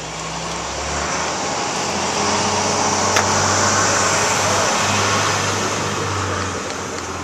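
A motor vehicle passing on the street: engine and tyre noise that swells over the first few seconds and fades toward the end, with one sharp click about three seconds in.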